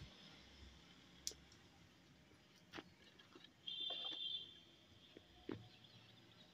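Near silence: quiet room tone with a few faint, scattered clicks and one short high-pitched chirp a little before the middle.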